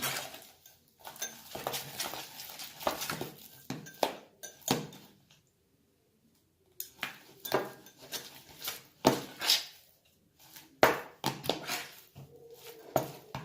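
Spoon stirring and scraping slime mixture in a bowl, with irregular clinks and scrapes against the bowl and a brief pause about five seconds in. The slime is being worked with its activator until it comes away from the sides of the bowl.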